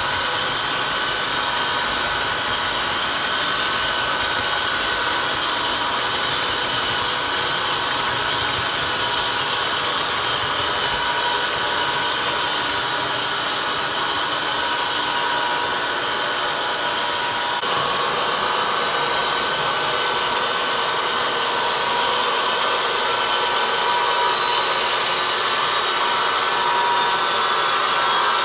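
HO scale model freight cars rolling along the track: a steady whirring hiss of small wheels on metal rails with a thin steady whine running through it, growing a little louder near the end.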